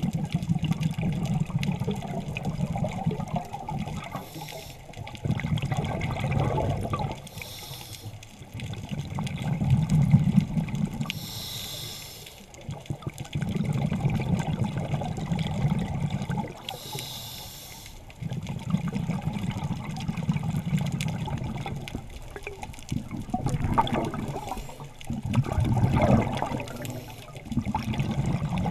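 Scuba regulator breathing heard underwater: short hissing inhalations through the demand valve alternate with longer bursts of rumbling exhaled bubbles, in a slow cycle about every five seconds.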